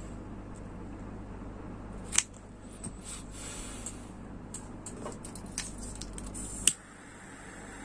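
Scissors snipping paracord ends. There are two sharp snips, about two seconds in and near the end, with lighter handling ticks between them, over a steady low hum.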